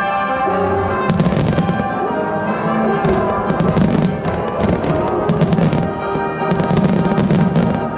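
Fireworks bursting and crackling in rapid succession, densest in the middle, over music playing along with the show.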